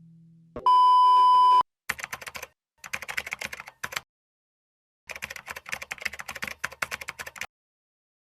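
A steady electronic beep lasting about a second, then three runs of rapid keyboard-typing clicks with dead silence between them: an edited-in typing sound effect.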